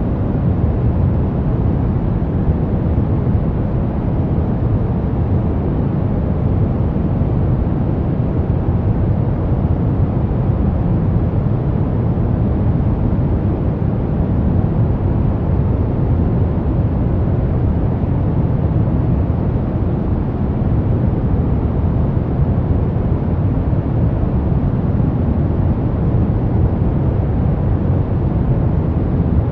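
Brown noise: a steady, even, deep rushing hiss with most of its weight in the low end and little treble, unchanging throughout.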